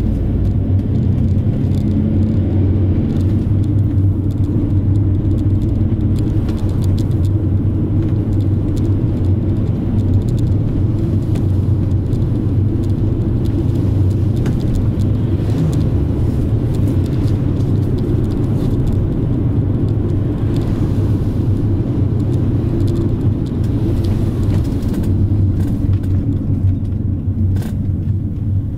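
Inside a moving minibus: the engine drones low and steady under the rumble of the tyres on the road, with a few faint clicks and rattles now and then.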